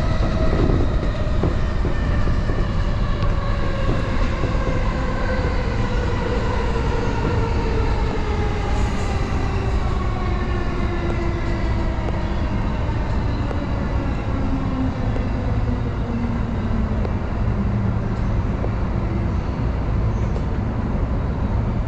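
Electric commuter train's traction motors whining in a slowly falling pitch as the train slows down, over a steady low rumble of wheels on the rails.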